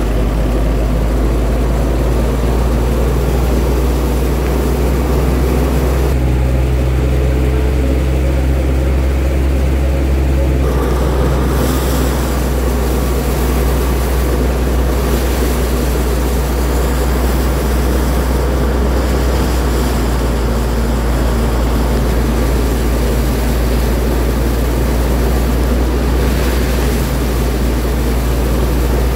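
Wheat threshing machine running with a steady, loud low drone. About eleven seconds in, a brighter hiss joins the drone and carries on.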